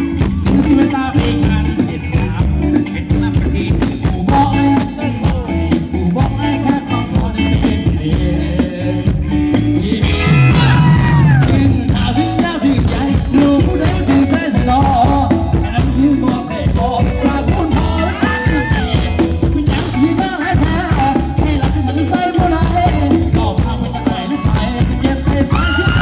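Live Thai ramwong dance music from a band, played loud with a steady drum beat and a singer's voice over it.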